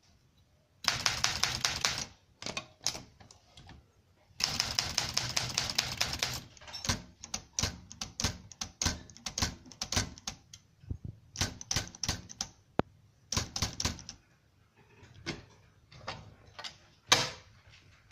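Olympia SM9 manual portable typewriter being typed on: two fast runs of rapid keystrokes, then slower, scattered key strikes, with one louder strike near the end.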